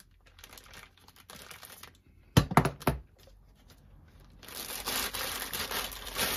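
Plastic bag being torn and pulled open by hand: faint rustling, a quick cluster of sharp snaps about two and a half seconds in, then loud, continuous crinkling of the plastic from about four and a half seconds on.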